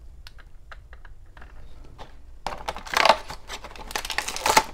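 Light clicks of small plastic toy figures and packaging being handled. About two and a half seconds in, steady crinkling begins as a small plastic blind bag is opened.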